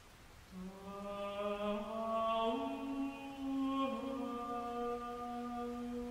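Slow, chant-like music: long held notes that swell in, step up once and then dip a little before holding steady.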